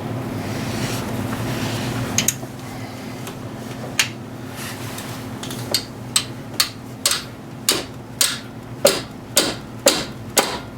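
A hammer strikes an inverted Torx wrench fitted on a seized E14 Torx bolt, metal on metal, to shock the bolt loose. There are a few single blows at first, then a steady run of about two strikes a second from about halfway, over a steady low hum.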